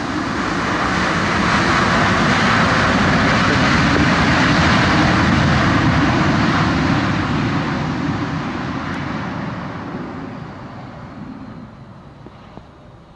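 Boeing 737-800 jet engines at high power in reverse thrust on the landing roll on a wet runway: a loud rush that builds for about four seconds, then fades steadily as the airliner slows and rolls away.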